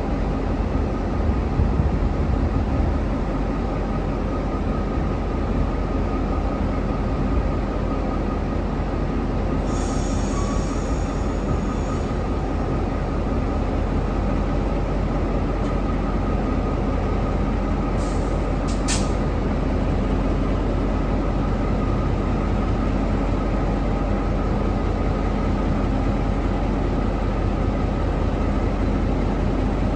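Diesel-electric freight locomotive engine running steadily with an even hum. About ten seconds in there is a brief high-pitched squeal lasting a couple of seconds, and a little later two or three short, sharp high sounds.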